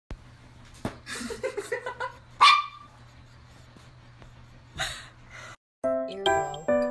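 A dog gives one short, sharp yip-like bark about two and a half seconds in, with softer sounds before and after it. Music begins near the end.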